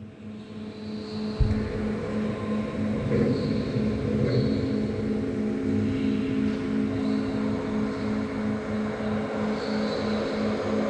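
Vehicle traffic sound fading in: a steady mechanical hum with a low tone pulsing at an even rate, louder over the first couple of seconds, with a single thump about a second and a half in.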